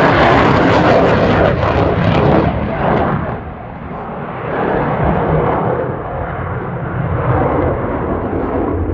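Eurofighter Typhoon's twin EJ200 jet engines at high power, a loud, continuous roar with crackle in the first few seconds, easing about three seconds in and then building again.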